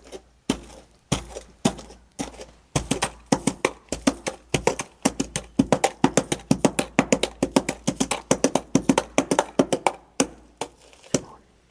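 Foley hoofbeats of a running horse: rapid, light knocks struck in quick galloping groups, several a second, stopping about ten and a half seconds in.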